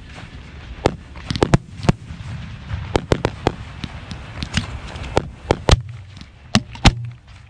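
Professional 1.3 aerial firework shells launching from mortar racks and bursting overhead, heard from the firing line. They come as a dense, irregular string of sharp bangs, about fifteen in all, some in quick clusters.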